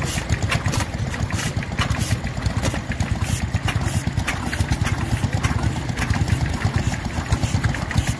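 Vintage stationary engines running: a fast, steady low chugging, with irregular sharp clicks over it.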